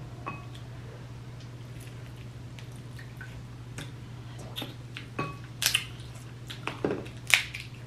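Snow crab being eaten close to the microphone: wet, squishy chewing and smacking of crab meat with small clicks, and sharp cracks of crab-leg shell being snapped, the loudest a little past halfway and again near the end. A steady low hum runs underneath.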